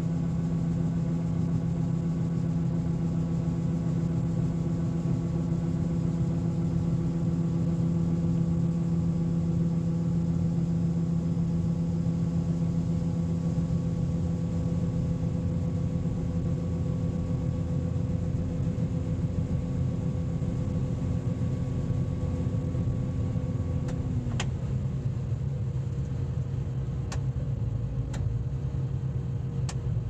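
Combine running while its unloading auger empties shelled corn into a grain cart: a steady engine and auger drone. About 24 seconds in, the auger's hum winds down and stops, leaving the engine running, and a few sharp clicks follow.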